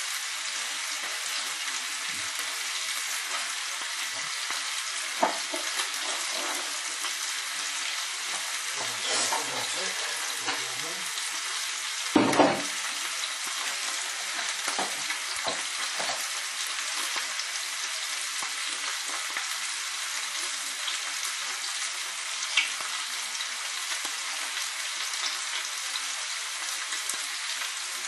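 Meat sizzling steadily in a frying pan, with a few knocks from the cooking, the loudest about twelve seconds in.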